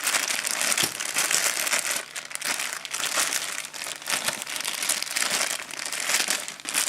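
Packaging being unwrapped by hand, crinkling and rustling continuously as the phone holder's box is opened.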